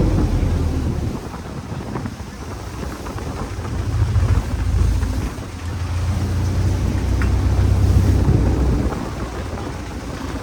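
A boat's engine running at sea, its low hum swelling and fading every few seconds under heavy wind noise on the microphone.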